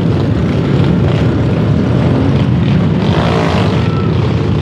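Engines of a group of dirt bikes and small motorcycles riding past together, a loud, steady drone of many engines at once.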